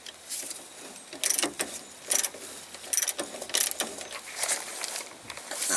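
Steel spanners clinking and scraping on the nut and bolt of a Land Rover Defender's Panhard rod mount as the nut is tightened, in short, irregular metallic clicks about once or twice a second.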